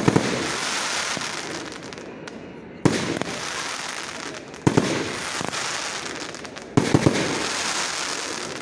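Aerial fireworks bursting overhead: about four loud bangs roughly two seconds apart, some doubled, each followed by a fading crackle.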